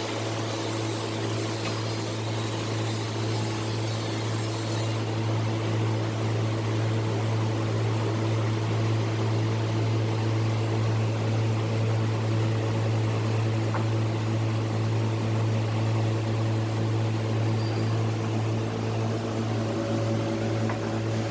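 Double-head automatic notching machine running with a steady motor hum, a strong low drone with a few steady higher tones and no distinct cutting strikes.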